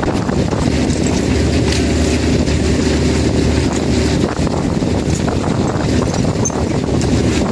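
Fishing boat's engine running steadily with a constant low hum, with wind buffeting the microphone.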